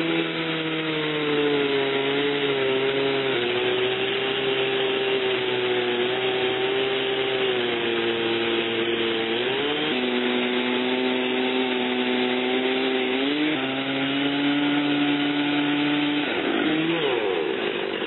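Two-stroke chainsaw in an Alaskan chainsaw mill, running under load as it rips lengthwise through a cedar log. Its engine note holds steady but steps up and down in pitch a few times, and wavers near the end.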